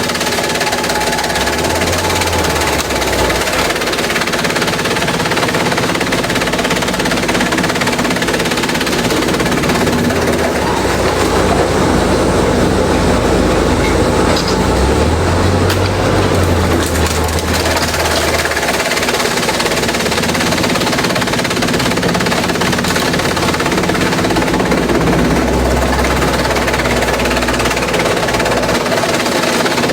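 Industrial bamboo shredder running, loud and continuous, with a dense rapid cracking and clattering over a steady mechanical hum. A deeper low drone swells up and falls back several times.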